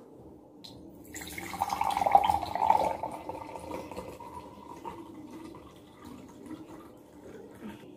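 Juice pouring in a thin stream into a glass tumbler and filling it. It starts about a second in, is loudest in the next two seconds, then grows steadily fainter.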